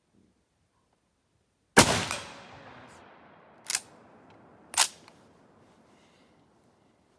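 A Swiss K11 carbine, a straight-pull Schmidt-Rubin rifle in 7.5x55mm Swiss, fires one very loud shot that echoes and dies away over about three seconds. Then two sharp metallic clacks about a second apart: the straight-pull bolt drawn back and pushed forward to chamber the next round.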